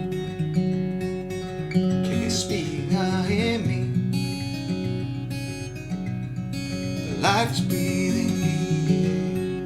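Handmade Luca Canteri acoustic guitar strummed in a steady rhythmic chord pattern as a song's accompaniment. Twice, a short wordless vocal glide rises over the chords.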